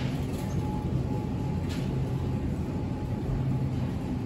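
Steady low mechanical hum of supermarket refrigerated display cases and ventilation, with a couple of faint clicks.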